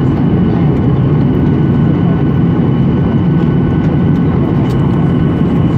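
Steady cabin noise inside a Boeing 737-800 in flight: the CFM56 jet engines and the rush of air past the fuselage, with a faint high steady whine over it.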